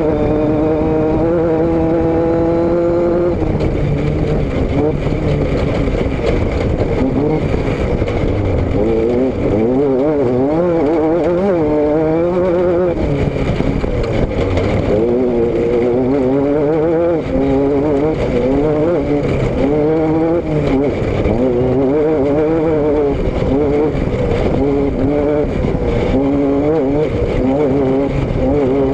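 Vehicle engine and exhaust on the move, picked up by a rear-mounted camera. The engine note climbs over the first few seconds, then keeps rising and falling with the throttle, over a steady rumble of wind and road noise.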